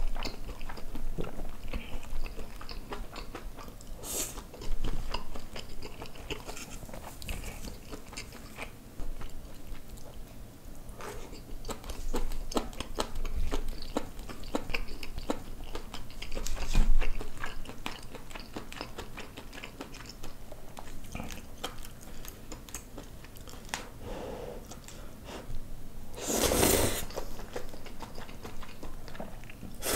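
Close-miked chewing and biting: wet mouth sounds and small clicks of a person eating spicy braised kimchi with pork belly, glass noodles and rice. A louder, short noisy burst comes near the end.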